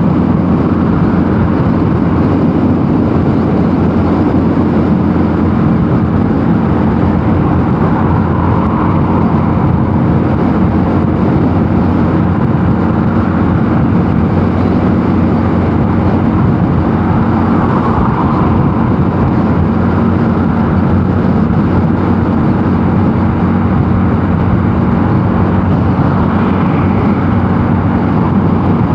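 Mondial Nevada 250 motorcycle engine running at a steady cruising speed, with wind rush over it. The note and level hold constant throughout, as at a fixed throttle in top gear.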